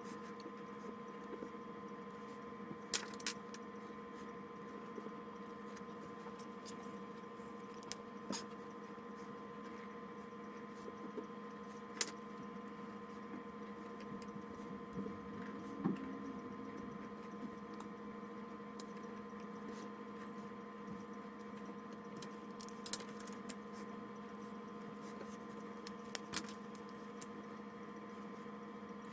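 Pens tapping and clicking on paper during drawing: a few scattered sharp clicks over a steady electrical hum.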